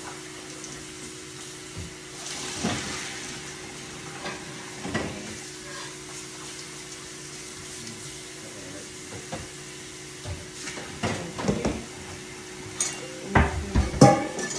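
Kitchen cooking sounds: a steady sizzling hiss from the stove over a low steady hum, with scattered knocks of pots and cabinets that bunch into louder clatter near the end.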